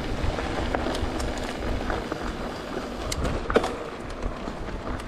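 E-mountain bike being ridden: a steady low rumble with scattered sharp clicks, the loudest about three and a half seconds in, from the chain skipping on a worn-out cassette.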